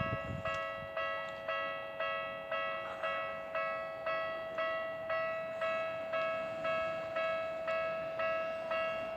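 Japanese railway level-crossing warning bell ringing about twice a second over a steady held tone, the alarm that warns that a train is coming and the crossing is closed.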